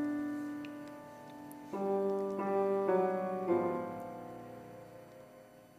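A 110-year-old piano playing a slow, quiet phrase: a held chord fading away, then a few single notes struck roughly half a second apart from a little under two seconds in, which ring out and die away almost to silence.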